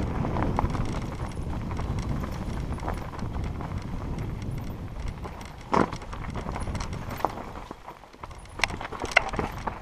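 Mountain bike riding down a rough, stony dirt trail: the tyres rumble over rocks and the bike rattles, with frequent clicks and a sharp knock from a bump about six seconds in and a few more knocks near the end.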